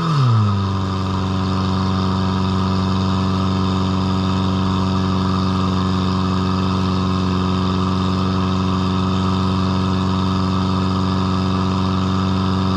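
PS 12 portable fire pump's 1200 cc engine running under throttle. Its pitch drops just at the start, then holds at a steady speed.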